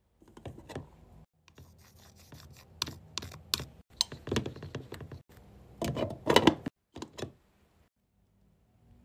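Irregular light clicks, taps and scrapes from handling a Dearlwax hair-removal wax warmer, loudest in a cluster about six seconds in.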